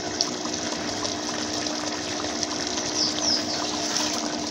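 Tomato sauce boiling in an aluminium pot on a gas burner: a steady bubbling hiss with a low hum underneath.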